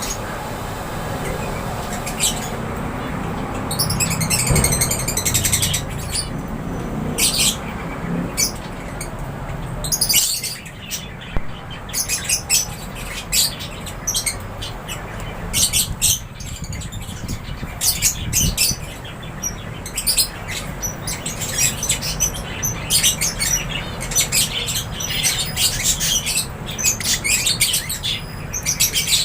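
A flock of lovebirds chirping, with many quick, high, overlapping chirps. A low rumble sits under the first third and fades out about ten seconds in.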